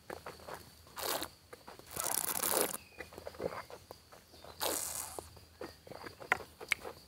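Mouth sounds of wine tasting: red wine held and worked in the mouth, with three hissing draws of air over it, about a second in, around two seconds in, and near five seconds, heard close up on a lapel microphone.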